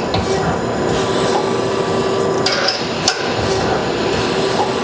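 The 12-position tool turret of a Doosan Puma 2000SY CNC turning center indexing: several sharp clunks as it unclamps, turns and locks at each station, over the machine's steady running hum.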